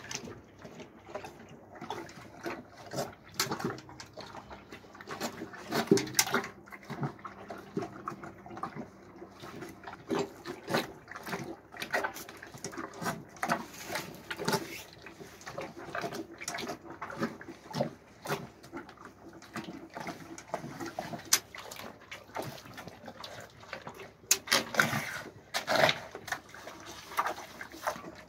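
Two cows slurping and lapping liquid feed from a metal bucket and a metal basin, with frequent irregular sharp knocks and splashes as they eat.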